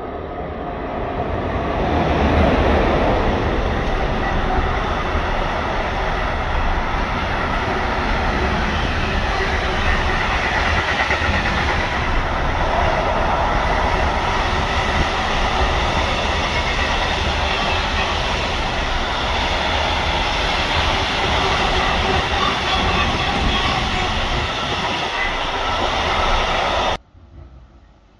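Container freight train hauled by an electric locomotive passing close by. The sound builds as the locomotive arrives, then the wheels of the long string of wagons run steadily over the rails, until the sound cuts off suddenly near the end.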